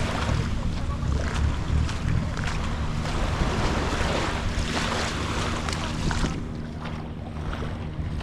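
A boat engine running steadily, over waves washing in and wind on the microphone.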